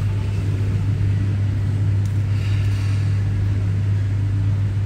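Steady low hum with no speech over it, and a faint rustle about halfway through.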